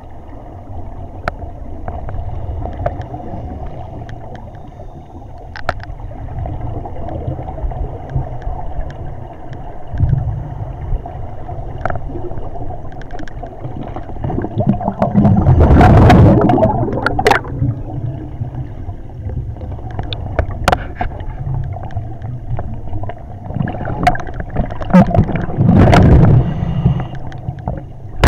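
Underwater audio through a camera housing: a steady low rumble with scattered clicks, and two loud gurgling rushes of scuba exhaust bubbles, one about halfway through and one near the end.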